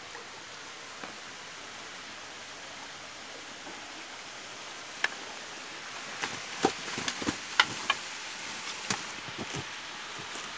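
Steady outdoor hiss, then from about halfway a string of sharp clicks and knocks as a landing net with a metal handle is brought up the bank with a caught fish in it.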